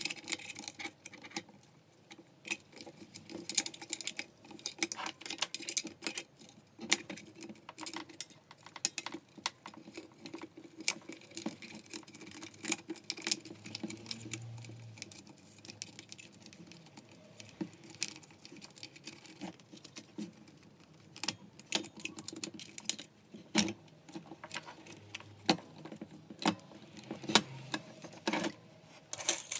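Irregular clicks, taps and clatter of small hard parts being handled and set down, as on a workbench while taking apart a Makita 9901 belt sander.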